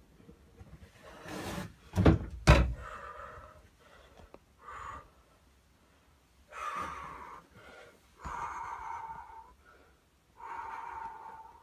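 Two loud knocks about half a second apart, then several quieter sounds, each a second or so long.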